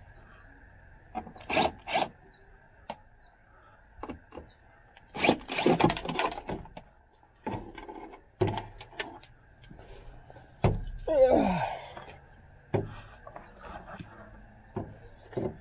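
Scattered clicks, knocks and rubbing of plastic parts as a Suburban's taillight assembly and its bulb sockets are handled and pulled free, with a short squeak that falls in pitch a little past the middle.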